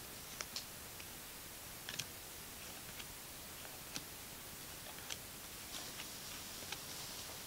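Cardboard trading cards being flipped through and handled: a few light, sharp clicks and taps of card edges, unevenly spaced, over a faint steady hiss.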